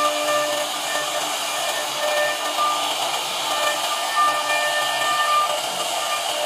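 CNC router spindle carving wood: a steady cutting hiss with a whine of several pitched tones that come and go.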